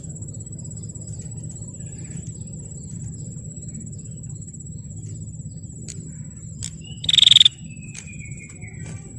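Prenjak (prinia) calling: a steady, very high-pitched trill runs throughout, and about seven seconds in a loud sharp call comes, followed by a short falling whistle.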